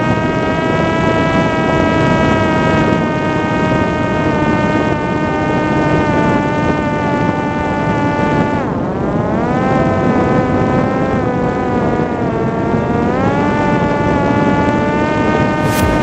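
Parrot Disco's electric motor and pusher propeller whining in climbing flight, over a rush of wind on the airframe. About halfway through the pitch drops sharply as the throttle eases, then rises again, and it steps up once more a few seconds later.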